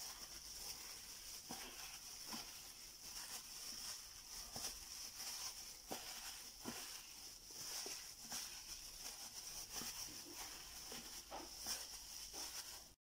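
Plastic-gloved hand mixing and rubbing marinade into raw chicken wings in a plastic container: faint, irregular squishing and crinkling of the plastic glove over a steady hiss.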